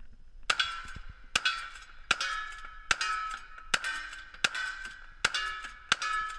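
Lever-action rifle firing a rapid string of about eight shots, roughly one every 0.8 seconds. Each shot is followed by the ringing clang of a struck steel target.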